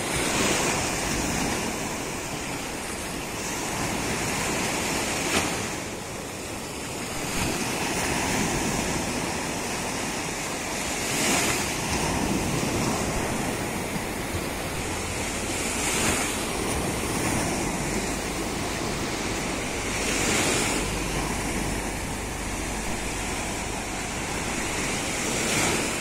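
Sea surf breaking and washing over the shallows at the beach, a steady rush that swells with each wave about every five seconds.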